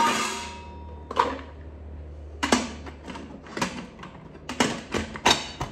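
Metal pressure cooker being handled: a clank that rings out briefly at the start, then a string of short clicks and knocks as the pot and its parts are moved.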